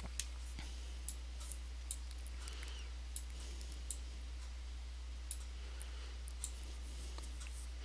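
Faint, scattered clicks of a computer mouse, about a dozen of them, as short strokes are drawn with the blob brush, over a low steady hum.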